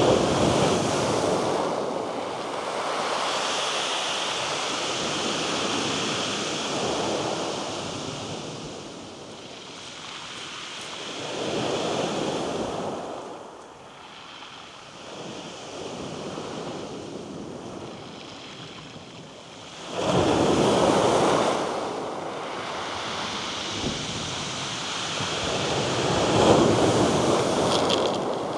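Small waves breaking and washing up a shingle beach. The surf swells and eases several times, with quieter lulls between the breakers.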